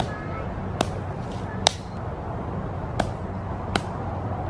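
About five sharp knocks, a second or so apart, from a hand tool striking the dirt while St. Augustine sod pieces are set into bare soil. They sound over a steady background hiss and low hum.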